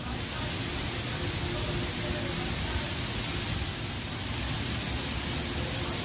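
Water falling in a continuous curtain from the rim of the umbrella fountain's canopy and splashing onto the stone paving below: a steady, dense rush.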